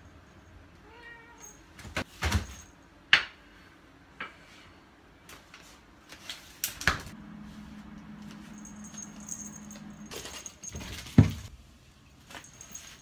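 A ginger cat gives a short, faint meow about a second in, amid a series of sharp household knocks and clicks; the loudest are a little after three seconds and just after eleven seconds. A steady low hum runs for about three seconds in the middle.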